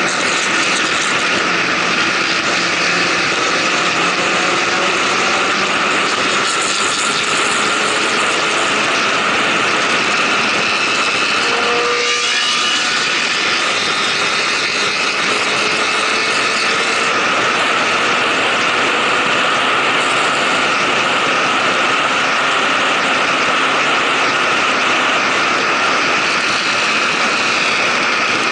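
Motorcycle at highway speed, accelerating: dense wind rush over the microphone with the engine note underneath, its pitch slowly rising.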